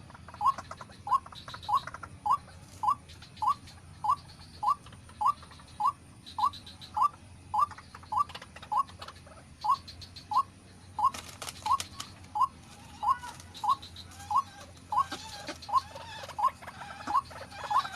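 White-breasted waterhen (ruak-ruak) calling: a steady string of short rising notes, nearly two a second. A brief crackling rustle comes about eleven seconds in.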